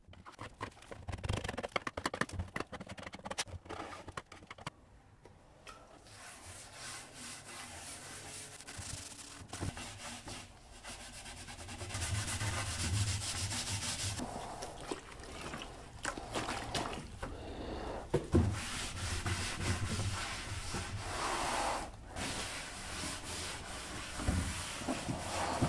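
Hand scrubbing and wiping over stripped wood-veneer drawer fronts, a rough rubbing that swells and fades with each stroke. A flurry of small clicks and taps comes in the first few seconds.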